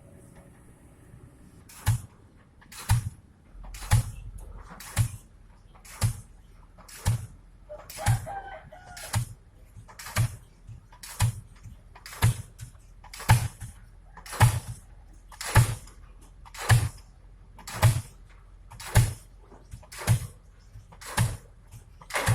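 Diesel pile hammer driving a pile: sharp, heavy impacts repeating about once a second, beginning about two seconds in and keeping an even beat, over a low steady engine hum.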